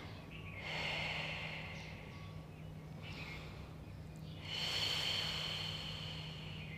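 A woman breathing slowly and audibly into a close microphone while holding a stretch: two long breaths about four seconds apart, over a faint steady low hum.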